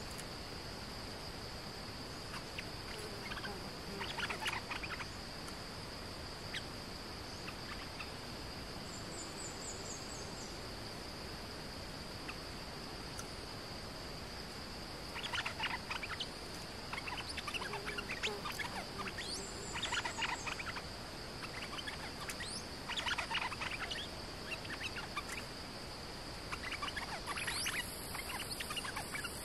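Stripe-throated bulbul singing in short song phrases: one about four seconds in, then five more spread through the second half. Under it a steady high insect drone runs throughout.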